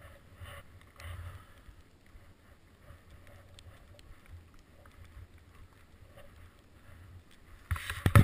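Low, faint rumble of sliding down a snow slope, with light wind on the microphone. Near the end, a sudden loud scratchy crackling as something rubs against the camera.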